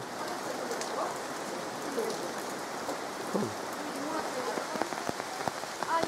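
Steady rain falling on leaves and surfaces, with scattered nearby drops ticking sharply, more of them in the second half.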